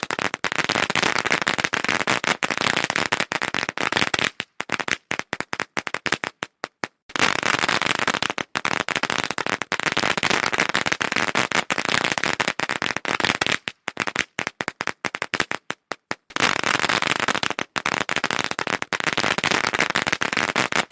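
Firecrackers going off in a fast, dense chatter of sharp bangs. The bangs thin to scattered pops and stop about four to seven seconds in, then a new dense run starts. The same happens again around fourteen to sixteen seconds.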